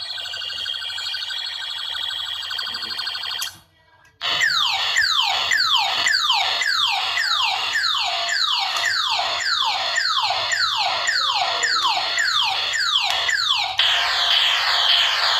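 Electronic sound effects from a battery-powered toy gun: first a steady buzzing tone, then, after a brief break, a rapid string of falling laser-style zaps at about two a second, ending in a hissing noise near the end.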